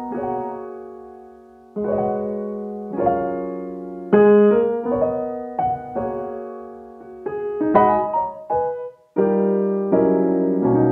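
Background piano music: slow chords struck one after another, each left to ring and fade.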